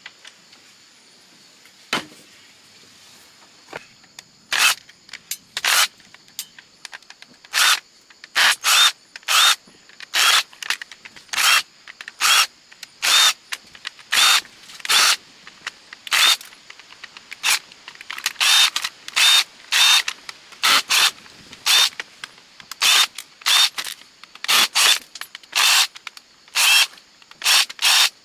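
Electric screwdriver running in many short bursts, about one a second from about five seconds in, backing out small screws.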